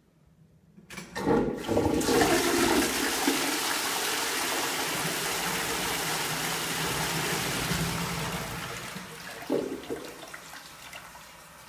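Dauntless high-level toilet cistern flushing: a sudden rush of water into the pan about a second in, running strong for several seconds, then tailing off, with a brief burst near the end.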